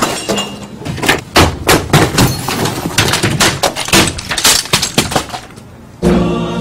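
A fast run of crashes, bangs and smashing as office equipment and desk things are knocked over and broken. About six seconds in the crashing stops and a music jingle starts.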